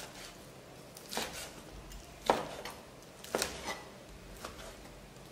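Chef's knife slicing fried chicken leg steak on a cutting board, the blade knocking sharply on the board several times, roughly once a second.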